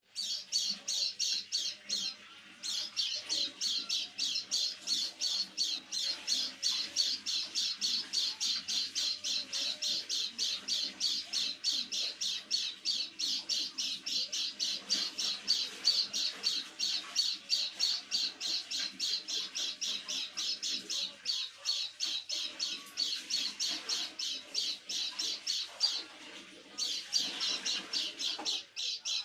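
Pleci (white-eye) calling over and over in a fast, even run of short high chirps, about three a second, with two brief breaks. It is a strange call that the owner says the bird gives every evening.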